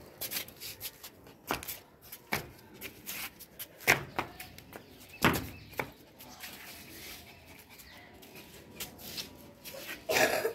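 Irregular light clicks and taps of steps on a concrete floor as a dog walks about, with a louder burst of scuffing near the end.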